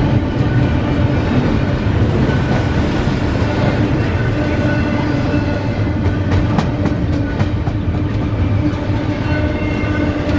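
Freight cars of a long CSX train rolling past: a steady rumble of steel wheels on rail with a thin, steady whine over it, and a quick run of clicks about six seconds in as wheels cross a rail joint.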